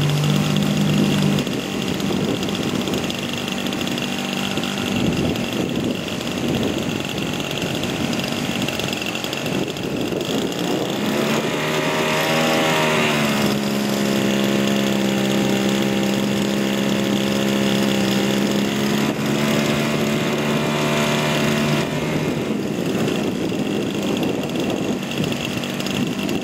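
Small gas engine of a model aircraft running steadily; about twelve seconds in it revs up, holds a higher steady pitch for several seconds, then eases off.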